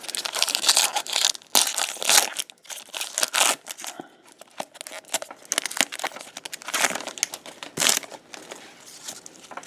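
Crinkling and tearing of trading-card pack wrappers, a dense run of irregular crackles.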